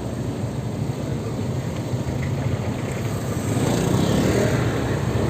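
Motor-vehicle engine and road noise, a steady low rumble that grows louder about three and a half seconds in.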